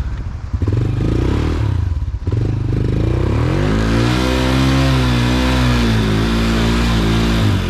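Honda TRX90 ATV's small four-stroke single-cylinder engine pulsing at first, then revving up and holding high revs before easing off near the end, as the quad is stuck in snow beside a ditch and being driven out.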